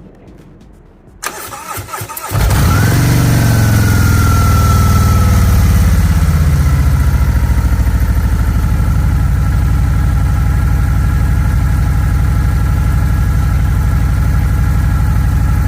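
Harley-Davidson Road King's V-twin engine cranked by the electric starter about a second in, firing a second later and settling into a loud, steady idle. A faint whine falls in pitch during the first few seconds after it catches.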